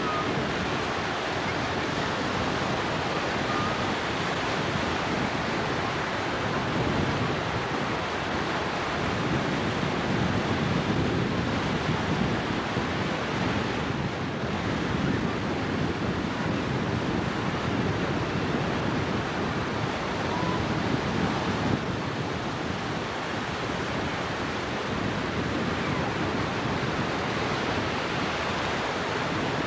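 Ocean surf breaking and washing in a steady rush that swells and eases a little, with wind buffeting the camcorder microphone.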